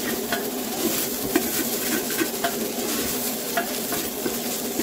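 Ground meat and chopped onion sizzling as they sauté in a metal pot, stirred with a spoon that scrapes and clicks against the pot now and then.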